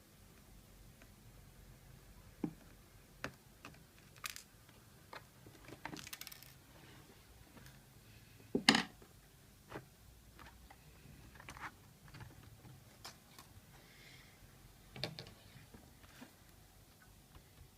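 Irregular clicks and knocks of a Lenovo G500 laptop's casing and drive parts being handled during disassembly, the loudest knock near the middle.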